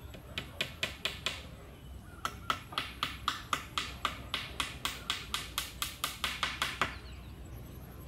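Knife or machete blade chopping into bamboo in quick, even strokes: a short run of about five, a brief pause, then a longer run at about four strokes a second that stops near the end.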